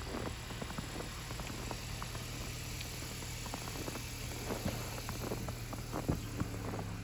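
City street traffic: a steady engine hum from idling and passing vehicles, over a background hiss, with scattered light clicks and taps.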